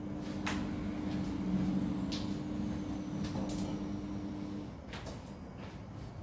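A low, steady hum with scattered light ticks and clicks, from a wok with a little oil heating on an electric cooker. The hum cuts off about four and a half seconds in.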